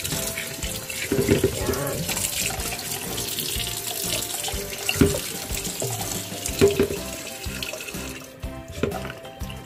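Kitchen tap running into a sink while food is rinsed under it, with a few knocks of handling. The water shuts off near the end. Background music plays under it.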